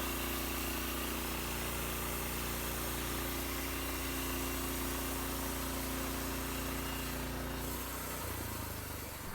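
Portable sawmill's engine running steadily, its note changing about eight seconds in.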